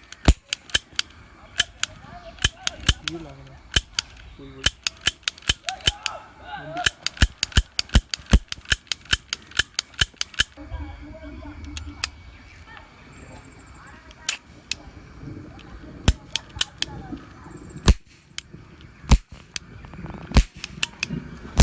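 Toy cap-gun revolver firing potash caps: dozens of sharp cracks. They come in quick runs of about three or four a second, densest in the first half, then more scattered.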